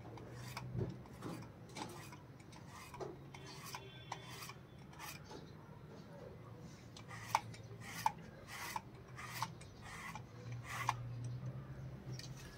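Metal-bristled slicker brush raking through a German Shepherd's long coat. It makes a series of short rasping strokes, about one or two a second.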